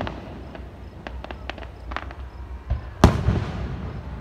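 Aerial fireworks: scattered sharp crackling pops, then a loud shell burst about three seconds in, followed by a fading rumble.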